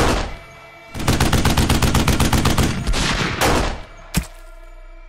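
Machine-gun fire sound effect. A burst of gunfire at the very start, then a long rapid burst of machine-gun fire from about one second in to nearly four seconds, and a single sharp shot just after it.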